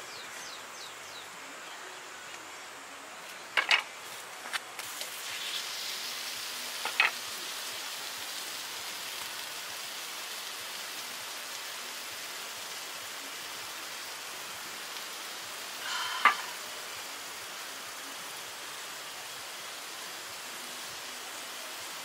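Pork belly strips sizzling on a hot grill pan, the hiss swelling slightly about five seconds in, with a few sharp clicks of handling, the loudest about three-quarters of the way through.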